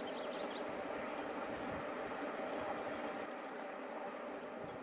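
Steam train running in the distance, a steady far-off rumble. A small bird twitters briefly in the first half second.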